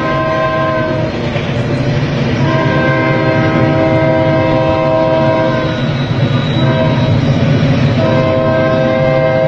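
Train horn sounding several steady tones together in repeated blasts over the low rumble of a moving train. One blast ends about a second in, a long blast follows, then a short toot, and another long blast starts near the end.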